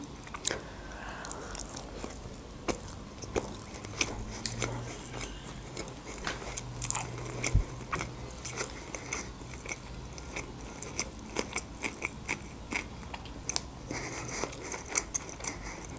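Close-miked chewing of a mouthful of sushi roll dipped in soy sauce: irregular small clicks and smacks of the mouth.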